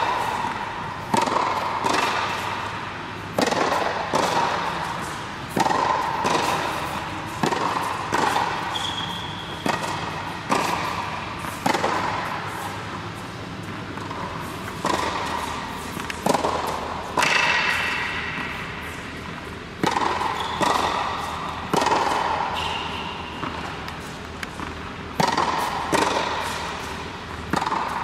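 Tennis rally: tennis balls struck by rackets and bouncing on a hard court, a sharp pop every second or so, each ringing out in the echo of a large indoor hall.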